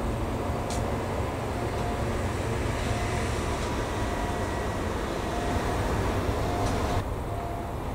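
Diesel shunting engine running steadily in a rail yard, with a short beep repeating about once a second and two sharp clicks; the sound changes abruptly about seven seconds in.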